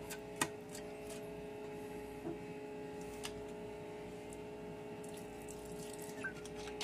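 A quiet, steady hum of several fixed tones, like a small motor or electrical appliance running, with a few faint clicks.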